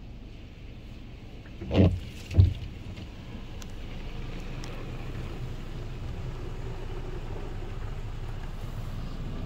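Istobal Flex-5 touchless car wash heard from inside the car: a steady rush of spray and machine noise, with two dull thumps about two seconds in. The noise then grows a little louder as foam is sprayed over the windshield.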